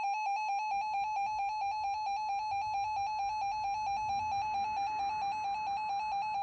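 A weather radio receiver's built-in alert alarm going off: a rapid, even beeping, about ten pulses a second, on one buzzy pitch. It signals that the radio has received a coded warning, here a special marine warning.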